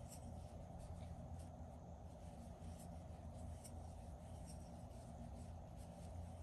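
Crochet hook working yarn: faint light scratches and small ticks as double crochet stitches are worked, over a steady low hum.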